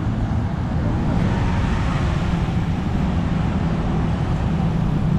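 Steady road traffic noise: a continuous rumble of cars and other motor vehicles on a busy city road.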